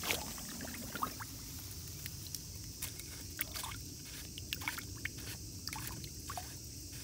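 Hand twisting the screw cap off a rice paddy's underdrain outlet pipe, with small scraping clicks throughout. Water starts to trickle and gurgle out as the paddy begins to drain.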